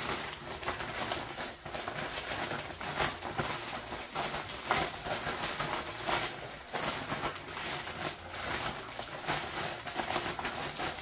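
Zip-top plastic bag being shaken and tossed by hand with pieces of walleye and dry cornmeal-and-flour breading inside, rustling and shifting irregularly as the fish is coated.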